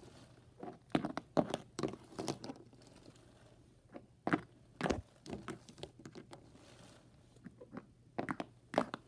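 Light taps and thuds on a wooden floor in short, irregular runs: plastic toy horse figures hopped along the floorboards like trotting hooves.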